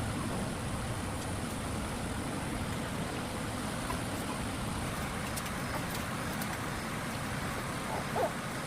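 Steady low rumbling noise, even throughout, with a few faint ticks near the end.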